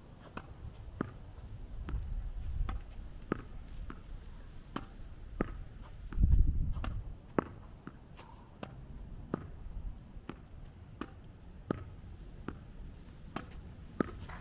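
Tennis ball being hit against a practice wall: a steady run of sharp pops from racket strikes, wall impacts and court bounces, about one to two a second. A low rumble about six seconds in.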